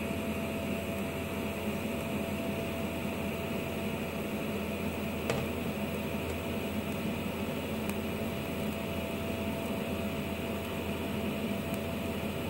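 TIG welding arc burning steadily: an even hiss with a constant hum tone through it, and one brief click about five seconds in.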